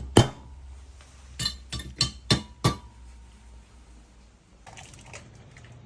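Sharp metallic clinks: one, then a run of five about a third of a second apart, some ringing briefly, followed by faint rattling near the end.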